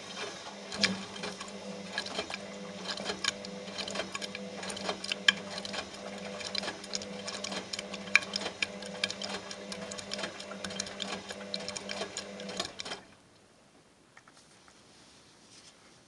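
Front-loading washing machine running, its drum turning a load of wet plush toys: a steady motor hum with lots of quick clicks and rattles. It stops abruptly about 13 seconds in.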